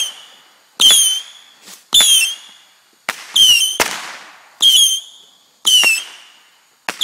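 Saturn missile battery firing its small whistling rockets one after another, about one a second. Each launch is a sharp crack followed by a short whistle that falls in pitch.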